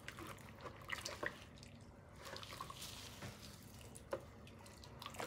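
Faint wet splashes, drips and squishes of dye water in a plastic bowl as a tint brush stirs it and a wet synthetic wig is dipped in, with a few sharper ticks about a second in and about four seconds in.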